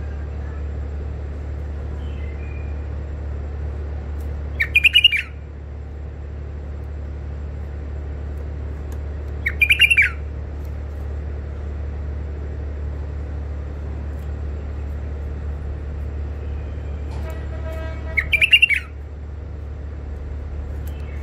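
White-eared bulbul calling three times, several seconds apart, each call a short quick burst of notes, over a steady low hum.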